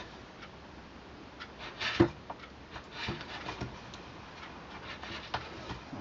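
Small knife paring fine shavings off a wooden joint spigot, trimming the high spots so it seats in an antler handle. Faint, intermittent scraping cuts, with a sharp click about two seconds in.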